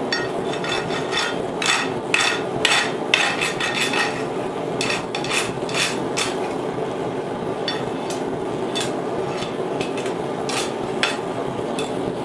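A flat rasp file rasping in quick back-and-forth strokes across the edge of a small forged steel spoon, rounding off a sharp point. The strokes come in rough bursts, with a pause around the middle.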